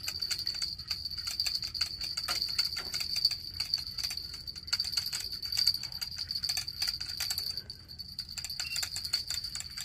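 Rapid, irregular light clicking and rattling over a steady high-pitched whine.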